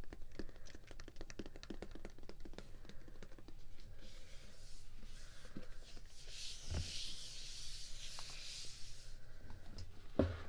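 Hand sounds for ASMR: fingernails tapping and scratching in quick clicks, then a soft, hissing rub. A dull thump comes about seven seconds in and another near the end.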